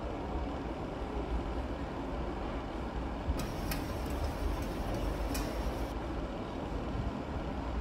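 Chef's knife cutting a red onion on a plastic cutting board: a short run of sharp taps, about two to three a second, between about three and six seconds in, over a steady low rumble.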